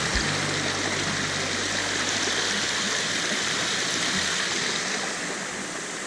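Shallow woodland stream and small waterfall rushing steadily over rocks. It eases slightly near the end.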